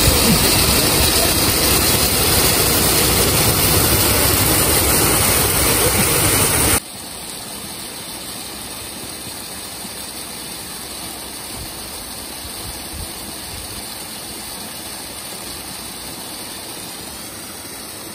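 Steady rush of waterfall water. About seven seconds in it drops suddenly to a fainter, steady rush.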